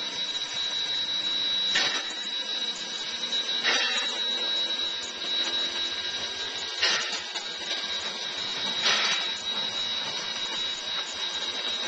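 Small steam tank locomotive moving off slowly: four sharp exhaust chuffs, two to three seconds apart, over a steady hiss.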